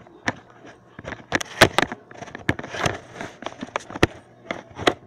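Irregular sharp clicks, knocks and rubbing of a phone being handled and repositioned, fingers and hands bumping and brushing against it close to its microphone.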